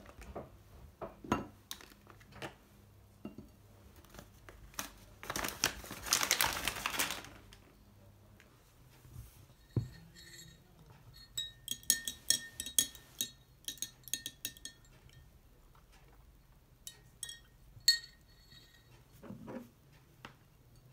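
Glassware and dishes handled on a tabletop: scattered light taps and knocks, a rustle lasting about two seconds around the middle, then a run of ringing glass clinks a little later and a couple of single clinks near the end.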